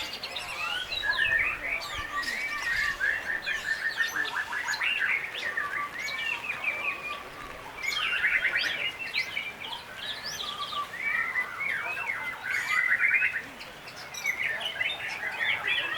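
White-rumped shama (murai batu) singing a long, varied song of fast whistled phrases and rapid trills, with a short lull near the end.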